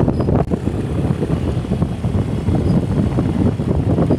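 Riding noise on a moving motorcycle: wind buffeting the microphone in an uneven rumble over the bike's running engine.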